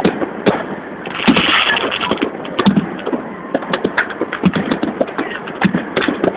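Aerial fireworks going off: a rapid, irregular string of bangs and cracks, with a brief hissing crackle about a second in.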